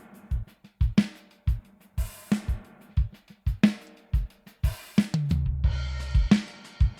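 A programmed drum-kit beat from a sampled kit (bass drum, snare, tom and cymbal) run through a reverb plug-in, the snare and cymbal hits trailing off in long reverb tails over steady kick drum thumps. A longer low ringing note sounds about five seconds in.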